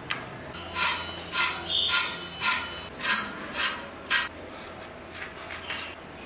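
Pointed gourd (potol) being sliced against a boti, the upright Bengali floor blade: about seven crisp cutting strokes at about two a second, stopping a little after four seconds.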